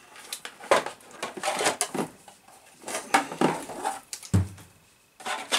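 Clear unpainted polycarbonate RC car body shell being handled and fitted over the buggy's roll cage: crackling, flexing plastic with light clattering, and a dull thump about four seconds in.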